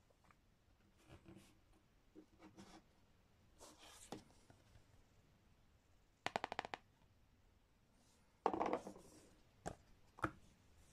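Hands handling playing cards and a cardboard token sheet: faint rustles and taps, a quick run of about eight clicks a little past the middle, then a louder rustling scrape and two short taps near the end.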